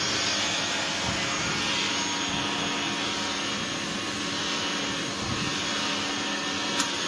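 Dog grooming clipper with a built-in vacuum running: a steady suction whoosh with a faint motor hum. A single sharp click comes near the end.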